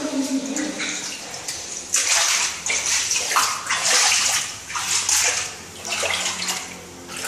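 Water splashing in repeated swells roughly once a second, from about two seconds in: footsteps wading through shallow floodwater on a tiled floor.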